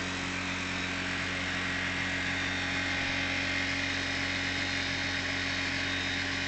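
Handheld electric beard trimmer buzzing steadily while it is run over a man's beard.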